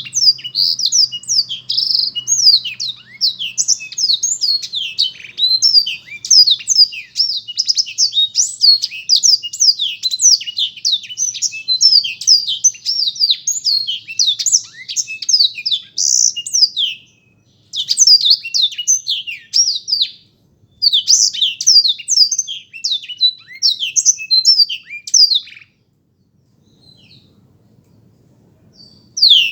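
Blackthroat (black-throated canary) singing a long, fast, twittering song of high chirps and trills. It breaks off briefly twice in the middle and stops about four seconds before the end.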